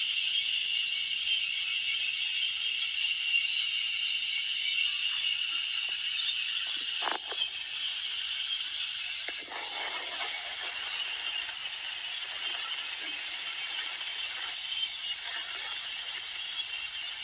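Steady hiss from the stovetop, where a pot of soup broth is boiling, with a brief knock about seven seconds in.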